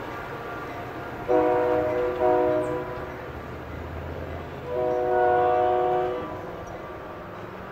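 Multi-chime diesel locomotive air horn sounding a chord: two short blasts close together, then a longer one about two seconds later, over a steady low rumble.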